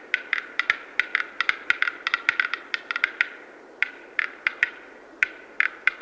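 Male black-billed capercaillie giving its display song: a quick, uneven series of sharp, dry clicks, several a second, pausing briefly a little past halfway before the clicking resumes.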